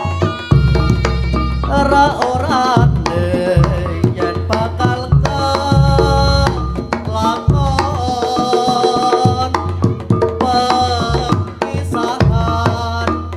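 Javanese reog-style music: a heavy bass beat with sharp hand-drum strokes under a wavering melody line.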